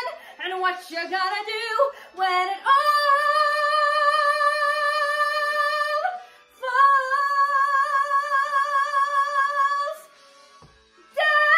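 A woman singing unaccompanied: a few quick phrases, then two long held notes with vibrato, broken by a short breath. Near the end she stops for about a second, then comes in on another long held note.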